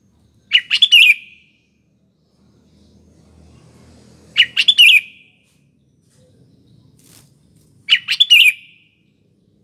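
Sooty-headed bulbul singing: three short phrases of quick, chattering whistled notes, about three and a half seconds apart.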